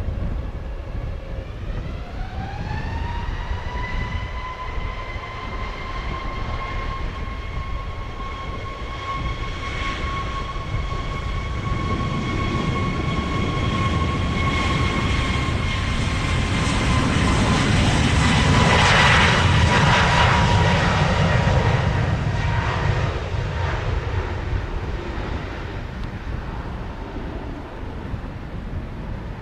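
Airbus A321neo's twin turbofan engines spooling up to takeoff power on the takeoff roll: a whine rises in pitch over the first few seconds, then holds steady while a low rumble grows. The noise is loudest about two-thirds of the way through as the jet passes and lifts off, then fades.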